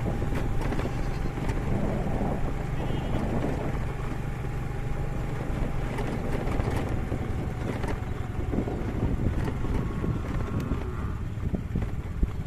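Wind buffeting the microphone outdoors: a steady low noise, with a faint steady hum above it for the first several seconds.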